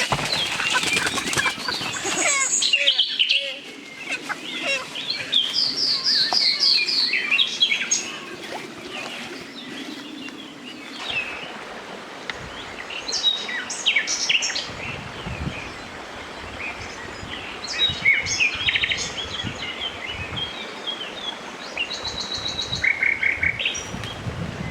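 Birds chirping and calling, with several short rapid trills of repeated notes, over scattered light knocks and clatter.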